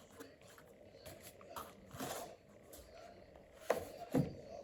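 Typewriter-style mechanical keys of a retro calculator being pressed: irregular clicks, with two louder clacks near the end.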